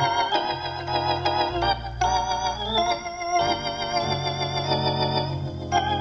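Hammond organ chords played through a Leslie speaker, its treble horn spinning so that the upper notes waver with a throbbing vibrato. The chords change every second or so.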